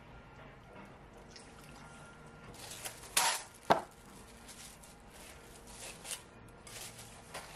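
Red wine trickling faintly from a bottle into a glass bowl of meat, then two sharp knocks a little after three seconds in. From about halfway there is repeated crinkling of Press'n Seal plastic wrap as it is stretched over the bowl.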